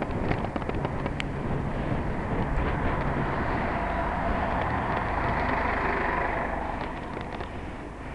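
Street traffic heard from a moving bicycle, over a steady low rumble of wind on the microphone, with scattered small rattles and clicks. A passing vehicle swells up about three seconds in and fades away near six seconds.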